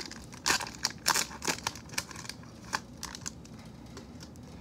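Foil wrapper of a baseball card pack crinkling and tearing as it is ripped open by hand, with a string of sharp crackles that die away after about three seconds.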